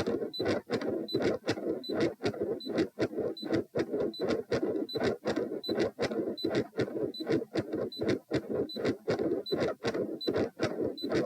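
Heart sounds during a Valsalva manoeuvre: regular sharp beats over a continuous rumbling noise that the recorder asks may be a patent ductus arteriosus 'machinery' murmur. A short high ECG monitor beep sounds with each heartbeat, about once every three quarters of a second.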